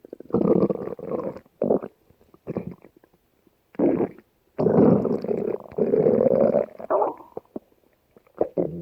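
A person's stomach growling: a run of irregular rumbles with short gaps between them, several brief ones and a longer, louder stretch of about two seconds past the middle.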